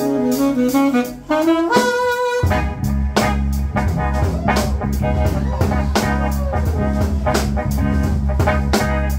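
Live jazz band: alto saxophone, drum kit, bass and electric guitar. There is a brief break about a second in, where a short rising run of notes is heard. The full band comes back in about two and a half seconds in, and the saxophone plays over a busy drum groove and a strong bass line.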